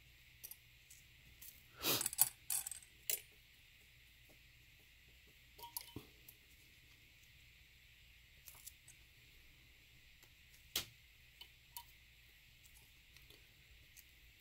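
Faint, scattered clicks and light clinks of hands handling a taped vinyl strip and small metal hardware on a work surface, with a cluster of louder clinks about two seconds in and a single sharp click near eleven seconds.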